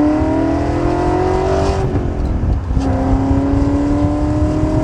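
BMW E39 engine revving hard under full-throttle acceleration in second gear, heard from inside the cabin, its pitch climbing steadily. About two seconds in, the pull breaks off briefly, then the engine picks up and climbs again. The driver felt this as the car losing traction, like traction control cutting in.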